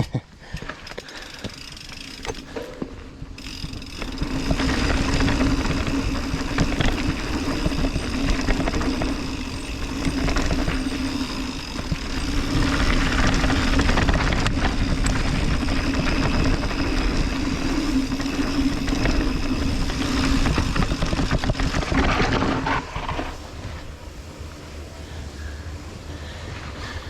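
Mountain bike running fast down a dirt downhill trail: wind rush on the mic, tyre roar and the rattle of the bike. It gets much louder about four seconds in as speed builds, and eases off again near the end.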